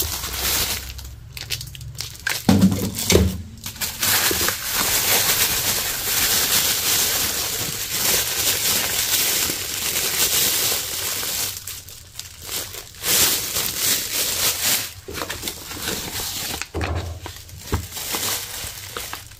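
Plastic grocery bags crinkling and rustling as food is lifted out of a shopping bag, in stretches with short pauses.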